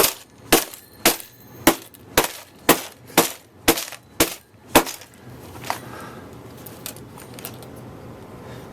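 A run of about ten sharp bangs, evenly spaced at roughly two a second, stopping about five seconds in.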